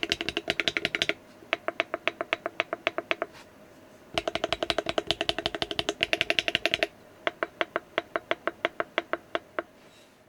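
Mechanical keyboard typing on HMX Snow Crash rail bottom-out linear switches, in an aluminium-plate keyboard with no foam. Quick runs of keystrokes alternate with slower, evenly spaced single presses of about five a second, and the typing stops shortly before the end.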